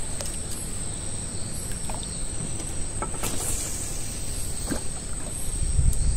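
Night ambience on the water: a steady low rumble under a constant thin high-pitched whine, with a couple of faint knocks in the middle.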